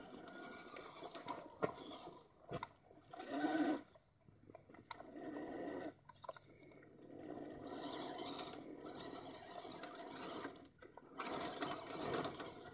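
Two 1/10-scale electric RC trucks, a crawler and a basher, driving over river rock: motors and gears whirring in stretches with short pauses, while the tyres crunch and stones click under them.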